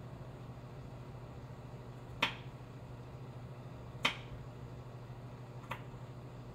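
Finger snapping: three sharp snaps about two seconds apart, the third fainter, over a steady low hum.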